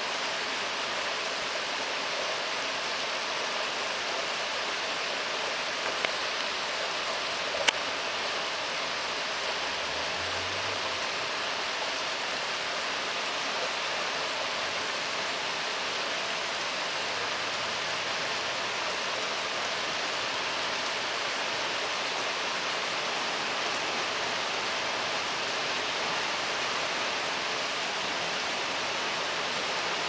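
Steady rushing of a shallow stream, with two sharp clicks about six and eight seconds in.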